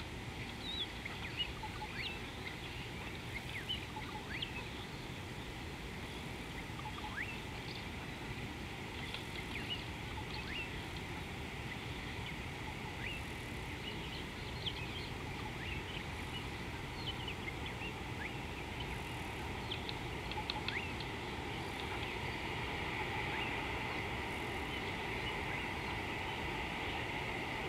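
Outdoor ambience: many short bird chirps and whistles scattered over a steady low background noise, with the high chorus growing denser near the end.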